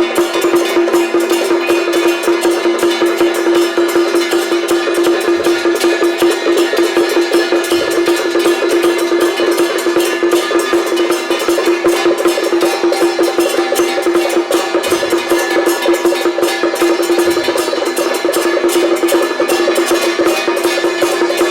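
Temple-procession percussion music playing: fast, unbroken metallic strikes over a steady held tone.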